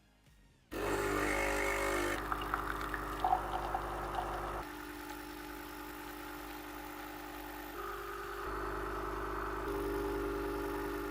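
Nespresso CitiZ espresso machine's vibratory pump buzzing as it brews an espresso. It starts about a second in, runs steadily and changes tone a few times as the pressure and flow shift.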